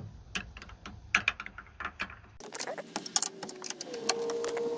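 An 11 mm box-end wrench clicking and clinking on the side mirror's mounting nuts as they are loosened: irregular sharp metallic clicks, with a steady hum joining in near the end.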